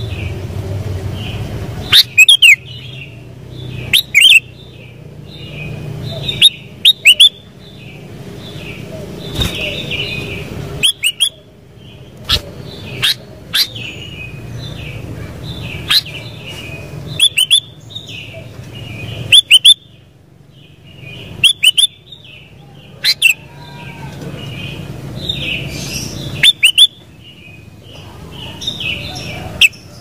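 Sooty-headed bulbul (kutilang) calling: loud, short whistled notes that sweep sharply in pitch, repeated irregularly every one to two seconds. Softer continuous twittering and a low steady rumble run underneath.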